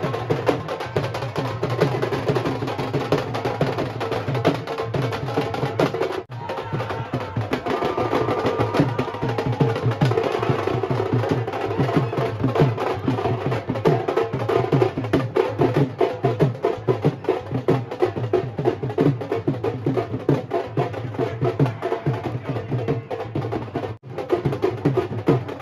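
Loud dance music driven by fast, heavy drumming, breaking off for an instant twice.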